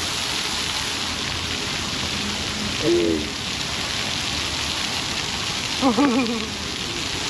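Ground-level fountain jets spraying up and pattering back onto wet stone paving, a steady hiss. Two short wavering vocal exclamations cut across it about three and six seconds in, the second louder.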